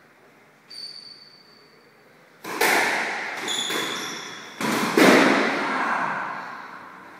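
Squash ball struck by rackets and hitting the court walls: three sharp hits about two and a half, four and a half and five seconds in, each ringing on in the echoing court. Court shoes squeak on the floor a little under a second in and again around three and a half seconds.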